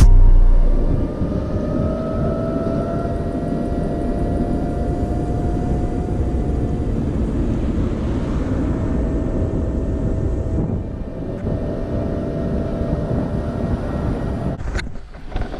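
DIY electric skateboard riding: the motor's steady whine, rising a little in pitch early on, over wheel noise and wind.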